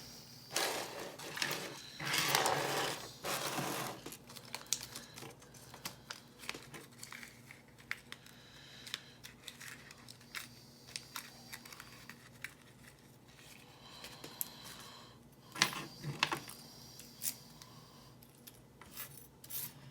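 Small metal clicks and scrapes of lock shims being handled and worked into a Lockwood oval pin-tumbler cylinder, with a longer scraping rustle near the start and a few sharper clicks about three quarters through.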